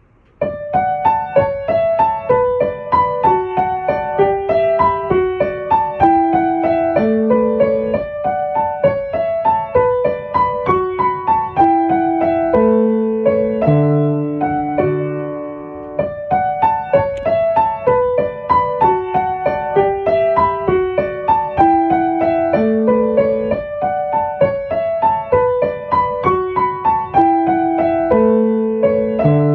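Solo piano music: a calm melody of single notes over slower bass notes, starting about half a second in after a brief pause.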